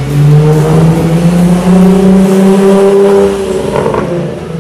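2003 Nissan 350Z's 3.5-litre V6 accelerating past. The engine note rises in pitch over about two seconds, holds, then fades as the car pulls away.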